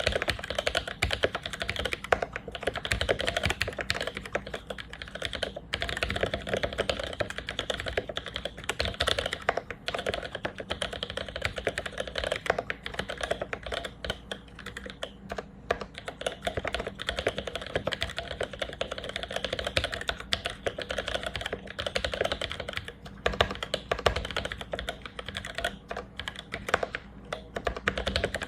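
Fast continuous typing on a mechanical keyboard with lubed vintage Cherry MX Black linear switches: a steady stream of keystrokes with a few brief pauses.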